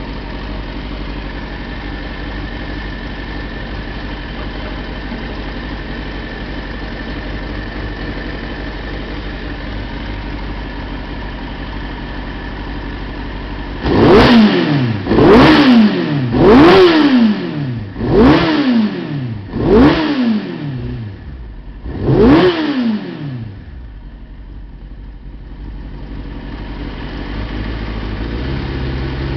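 Kawasaki ZX-6RR inline-four motorcycle engine idling steadily, then revved six times in quick sharp throttle blips, each climbing and falling straight back, before settling to idle again. It runs cleanly on freshly cleaned spark plugs, its misfire and fluffy running cured.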